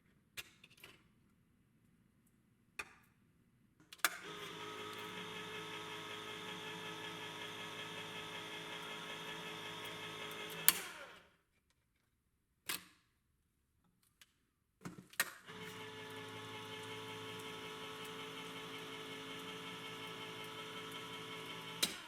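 Farberware electric can opener running twice, each time for about seven seconds with a steady motor hum as it turns a can against its cutter. Sharp clicks of the lever and can come before and between the runs, and a loud click ends the first run.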